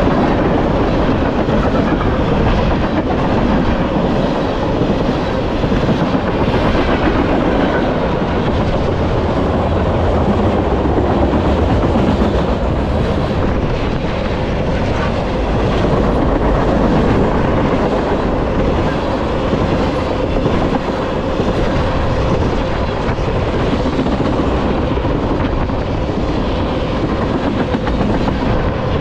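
Freight train cars rolling past at speed close by: a steady, loud rush of steel wheels on rail.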